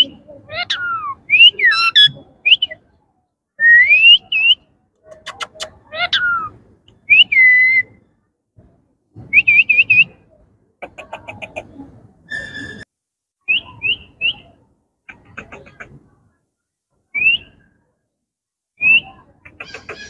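Indian ringneck parakeets whistling: short gliding whistled notes that rise and fall, in separate bursts, some in quick runs of three, with a few sharp clicks and soft chatter between them.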